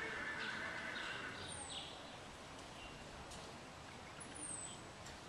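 Faint background of a bird chirping: two short, high, falling chirps, one about one and a half seconds in and one a little past four seconds. A faint high steady tone fades out in the first second and a half.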